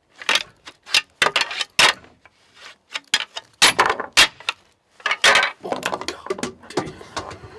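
A pair of deer rattling antlers clashed and ground together in irregular runs of sharp clacks, with short pauses between runs. This is antler rattling, used by deer hunters to imitate two bucks fighting.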